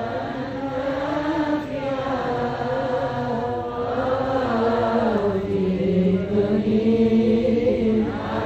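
Male voices singing an Arabic devotional song (sholawat) into microphones, drawing out long melismatic notes that bend slowly up and down in pitch.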